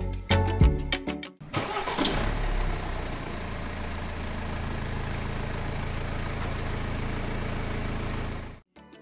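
Rhythmic background music for the first second and a half, then a tractor engine starts and runs steadily with a low hum, cutting off suddenly near the end.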